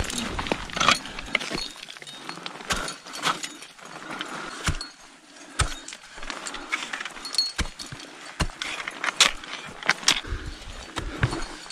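Ice axes planted into firm snow while metal climbing gear clinks and scrapes: a string of scattered sharp knocks and clinks, roughly a second apart, over a faint hiss.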